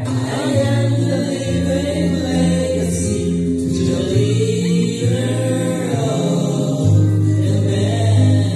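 Music: a group of voices singing a slow song over sustained bass notes that change every second or two.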